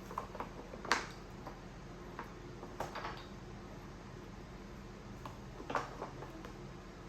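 Scattered short clicks and taps of a feeding spoon against a bowl, the loudest about a second in and small clusters near the middle and end, over a steady low hum.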